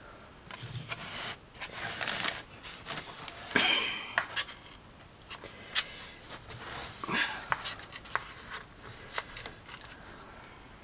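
Hands moving a small wooden model and chunks of foam about on a board: irregular scrapes, rubs and a few sharp clicks and light knocks.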